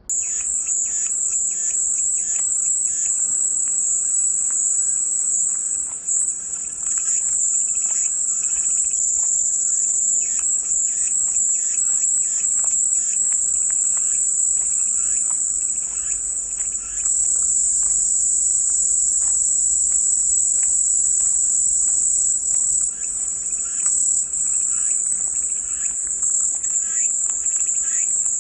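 Cicadas singing in chorus: a steady, high-pitched shrill buzz that runs without a break, with faint irregular ticking beneath it.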